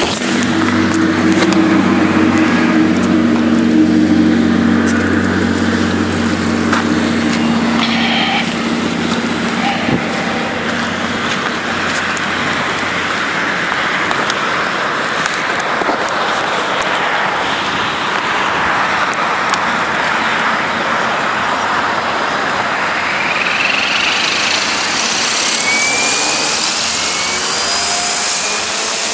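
Electric RC helicopter spooling up: the brushless motor and rotor whine climbs steadily in pitch over the last few seconds, over a constant rushing noise. A steady low hum is heard in the first several seconds and fades out.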